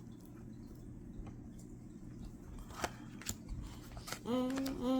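Soft rustling and a couple of light clicks of trading cards being handled and flipped through. About four seconds in, a person starts humming a held note, the loudest sound here.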